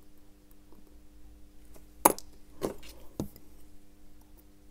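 Three sharp little metal clicks, the first the loudest, as steel tweezers and small parts knock against a watch movement in its holder, over a faint steady hum.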